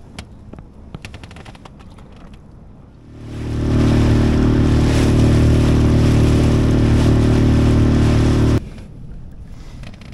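A boat motor running steadily at constant speed. It comes up loud about three seconds in and cuts off suddenly a little over five seconds later.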